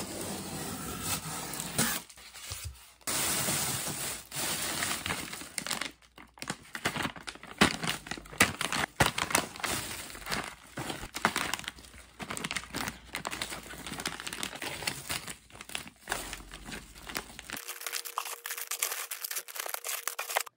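Plastic bag liner and plastic food packs crinkling and rustling, with many sharp crackles, as packs are pulled out of a styrofoam shipping box; the rustling stops briefly a couple of times.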